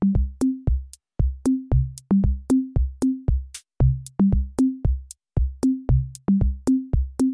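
Electronic background music: a drum-machine beat of sharp, pitched drum hits, about three a second, alternating between a lower and a higher tone.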